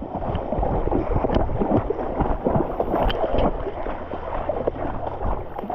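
Shallow creek water sloshing and splashing, with irregular knocks and rubbing.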